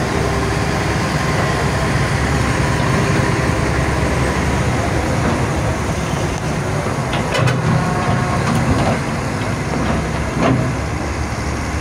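Hitachi hydraulic excavator's diesel engine running steadily as the machine swings and digs, with a few sharp knocks in the second half.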